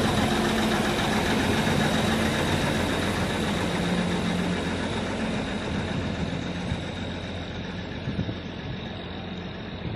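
Diesel engine of a Duomatic 08-32 track tamping machine running steadily, with a thin high whine over the engine note; the sound slowly fades.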